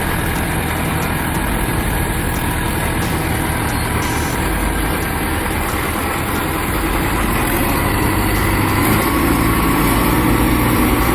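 Bulldozer's diesel engine running steadily, growing a little louder and heavier about eight seconds in.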